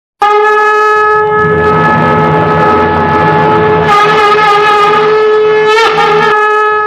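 Conch shell (shankh) blown in one long, steady note that starts abruptly. Near the end the note wavers and breaks briefly, then steadies again.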